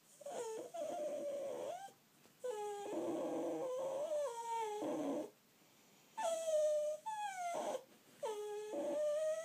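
Dog whining in a series of long, high whines, about five of them, each a second or two long, some sliding down in pitch at the end: a restless dog that won't settle to sleep.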